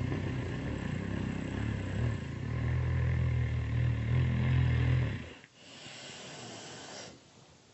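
Loud snoring: one long, low-pitched snore lasting about five seconds, then a softer, breathy breath, and quiet near the end.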